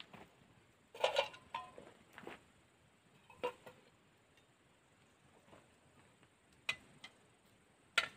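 A few scattered clinks and taps of a spoon on metal dishware, the loudest about a second in with a short ring, the rest sparser and lighter.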